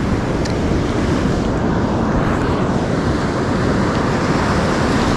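Surf washing steadily on a sandy beach, with wind noise on the microphone.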